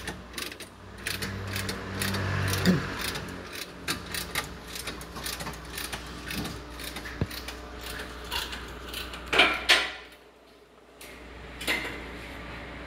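Hand tools clicking and clattering on metal as a mechanic works on the car, an irregular run of small clicks. A low hum runs through the first few seconds, and there are loud clanks about nine and a half seconds in and again near the end.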